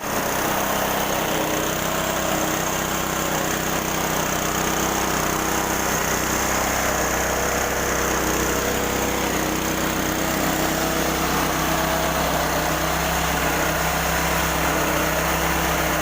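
Mini rice milling machine running at a steady pace, a continuous mechanical drone with hiss that holds even throughout.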